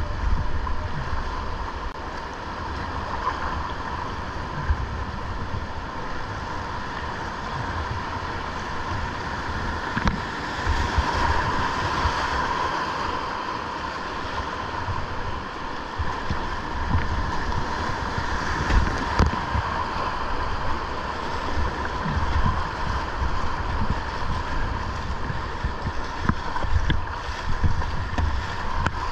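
Steady rush of river whitewater running through rapids, with irregular low buffeting of wind and spray on the microphone.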